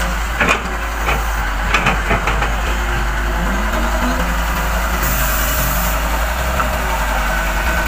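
Heavy earthmoving machinery, an excavator and dump trucks, running steadily, with a few sharp knocks in the first couple of seconds and a short high hiss about five seconds in.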